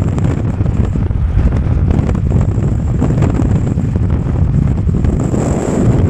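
Steady road and wind noise of a vehicle driving along, with wind buffeting the microphone.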